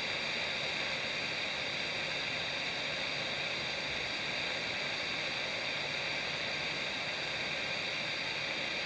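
Steady hiss of a weather radio carrying dead air: the NOAA Weather Radio broadcast has gone silent after the EAS test headers, a failed test.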